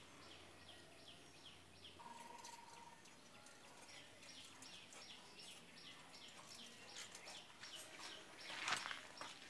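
A bird calling faintly, repeating a short falling chirp about twice a second. A brief, louder noise breaks in near the end.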